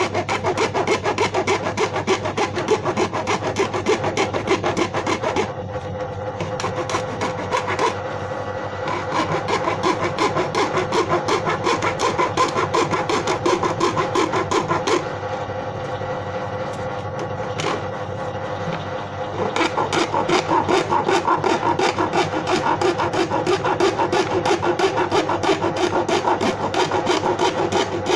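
A hand tool rasping rapidly back and forth against the plastic of an old paint bucket, in fast even strokes. It goes softer twice: a few seconds in, and again for a few seconds past the middle.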